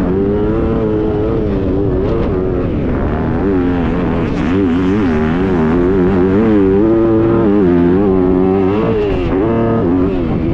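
Motocross dirt bike engine heard from on the bike, under hard throttle. Its pitch rises and falls over and over as the rider opens and rolls off the throttle around the track.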